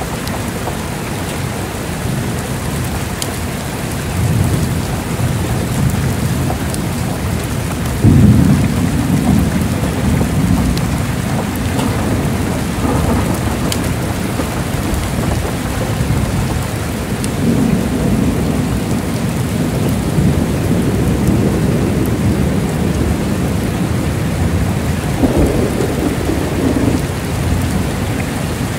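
Heavy rain falling steadily through a thunderstorm. Thunder rumbles in from about four seconds in, cracks suddenly and loudest about eight seconds in, and rolls on in further rumbles in the second half.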